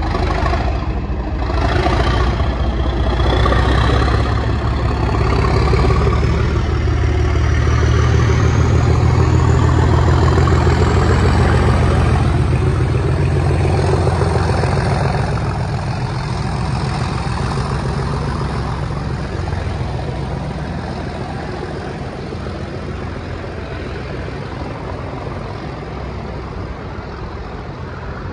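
Class 37 diesel locomotive's English Electric V12 engine working hard as it pulls a test train away and past, a heavy low rumble with the turbocharger whistle rising steadily in pitch over the first dozen seconds. The rumble eases in the second half as the coaches and the rear locomotive pass.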